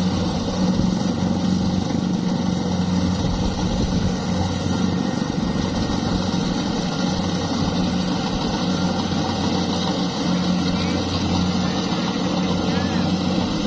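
Kubota rice combine harvester running steadily, a constant engine hum under a dense mechanical noise.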